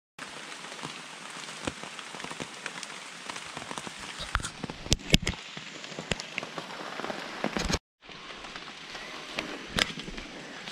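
Steady rain falling, with scattered louder drops striking close by. It cuts out for a moment about eight seconds in, then resumes.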